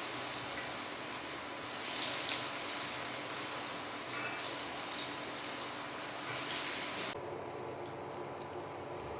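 Spice-marinated raw banana slices frying in a little hot oil in a kadai, a steady sizzle that swells louder a few times. The sizzle turns much quieter about seven seconds in.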